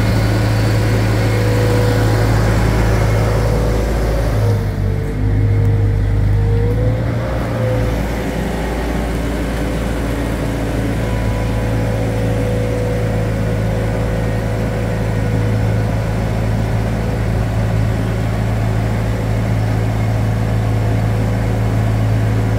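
Forklift engine running steadily under load while carrying a heavy machine. Its pitch dips briefly about five seconds in, then settles.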